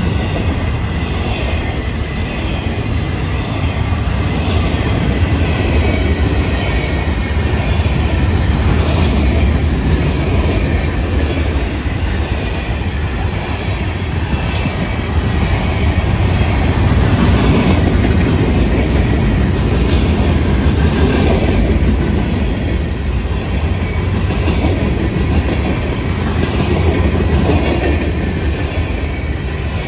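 Freight cars of a Florida East Coast Railway freight train rolling past: double-stack container cars, then tank cars, then open-top rock cars. Their steel wheels make a loud, steady rumble on the rails.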